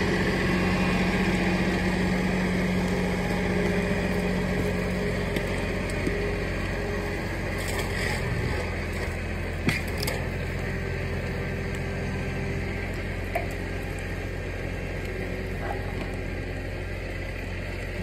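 Massey Ferguson 1835 compact tractor's diesel engine running steadily, with a few light knocks in the middle.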